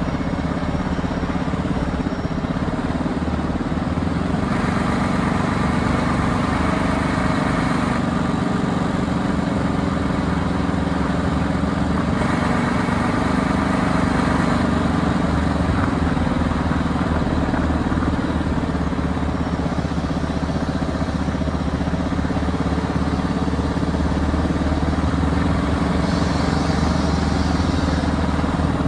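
Heavy truck's diesel engine running steadily as the truck drives slowly, a low continuous drone with road and wind noise over it.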